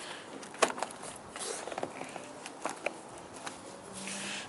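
Roof rack crossbar being slid onto the roof rails from the back: scattered clicks and light knocks of the rack parts, one sharper click about two-thirds of a second in, with a soft scrape near the end.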